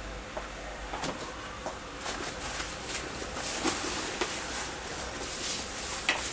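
Handling noise as a backpack is picked up and slung onto the shoulders: fabric rustling with scattered light knocks and clicks, busiest in the middle, over a faint steady hum.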